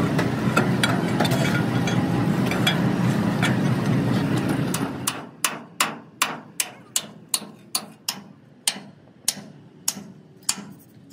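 Regular hammer blows, about two to three a second. For the first five seconds a steady low running noise covers them; then it stops and the blows stand out clearly, each one sharp.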